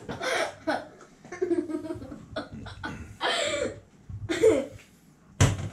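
Laughing in several short bursts, with a sharp knock near the end.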